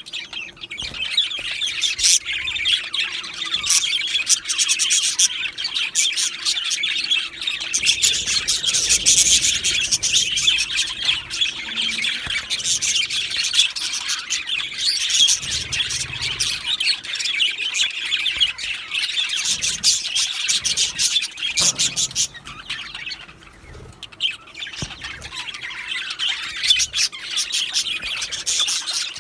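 Male budgerigars chirping and chattering continuously in a busy warble, with short clicks mixed in. The chatter dips briefly about three-quarters of the way through.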